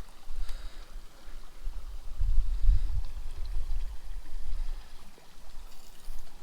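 Small mountain stream running, under a low rumble on the microphone that swells about two to three seconds in.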